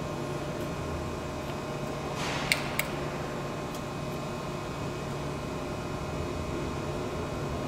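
Steady electric hum with faint steady whining tones from the Aronson HS45VF welding positioner's drive motor running under its variable-frequency drive. Two sharp clicks come about two and a half seconds in.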